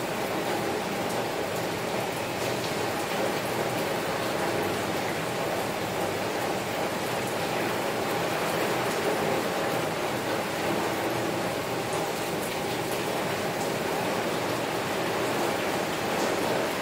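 Heavy rain falling steadily on a window: an even, unbroken hiss of rain with scattered individual drop taps.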